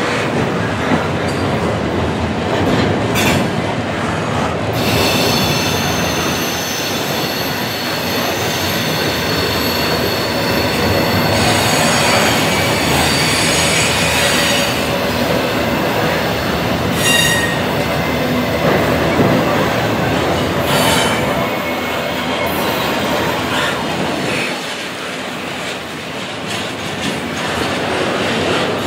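Double-stack intermodal well cars rolling past close by: a steady rumble of steel wheels on rail, with high-pitched wheel squeal that comes and goes, strongest for several seconds from about five seconds in.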